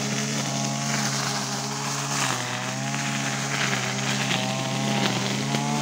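A small engine running steadily at an even speed, its pitch dipping briefly twice.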